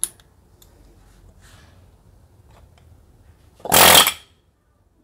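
Ingersoll Rand pneumatic air chisel firing one short, loud burst of about half a second, its chisel bit hammering into a wooden block, at full power with no hiss of leaking air. A sharp click comes right at the start as the air hose's quick coupler snaps onto the tool.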